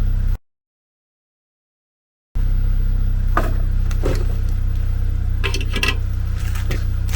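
A steady low hum, cut to dead silence for about two seconds near the start, then back with a few short rustles and knocks of packaging being handled.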